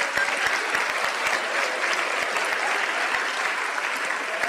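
Live audience applauding steadily, a dense patter of many hands clapping in response to a comedian's punchline.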